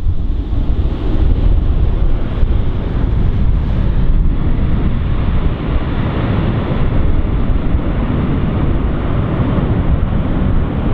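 Boeing 757's twin jet engines at takeoff thrust as it rolls away down the runway: a loud, steady, heavy rumble, with the jet blast buffeting the microphone.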